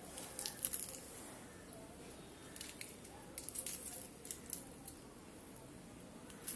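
Small knife cutting and scraping a whole raw fish as it is cleaned: short crisp scratching clicks, a cluster about half a second in and a longer run of them from about two and a half to four and a half seconds.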